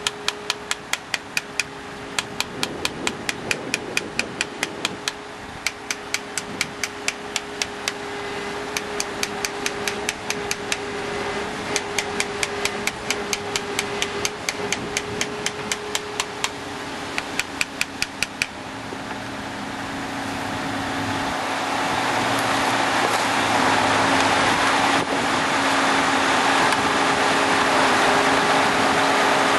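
Repeated sharp knocks, about two to three a second with short pauses, from compacting fresh concrete in test cube moulds, over a steady engine hum. About two-thirds of the way in the knocks stop and the engine noise swells and runs louder to the end.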